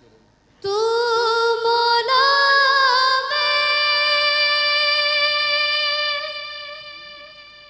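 A woman singing a hamd, a devotional hymn in praise of God, unaccompanied: a sung line begins about half a second in, turns through a few notes, then settles on one long held note that slowly fades near the end.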